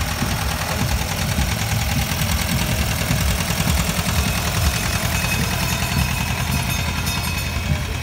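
Old tractor engine running at low speed with a steady low chugging as the tractor drives slowly past close by.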